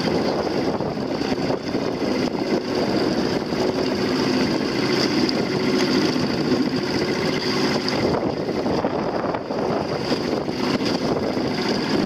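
A towing boat's motor running steadily, under the noise of wind and choppy water.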